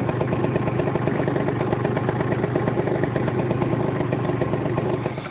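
CPI Popcorn scooter's 50cc two-stroke engine idling steadily, with a rapid, even pulse.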